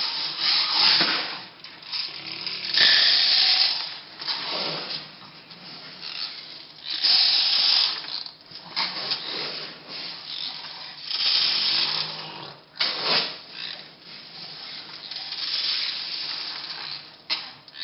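Dried split peas rustling and pouring in a large plastic tub as a toddler scoops them up and tips them out of plastic cups. The pouring comes as repeated hissing bursts, each about a second long.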